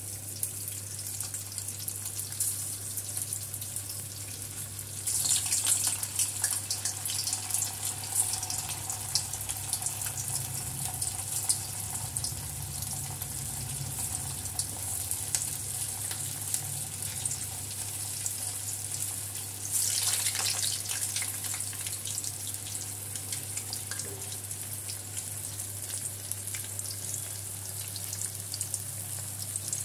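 Mutton kola balls deep-frying in hot oil in a steel kadai: a steady, crackling sizzle that surges sharply about five seconds in and again about twenty seconds in, as more balls go into the oil. A steady low hum runs underneath.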